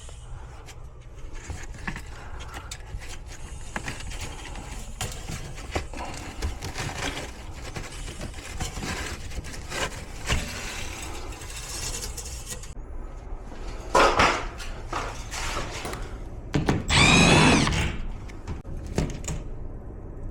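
Cordless drill/driver running in two short bursts, about 14 and 17 seconds in, the second a whine that bends in pitch as the motor speeds up and slows. Between the bursts, rustling and handling of panels and parts.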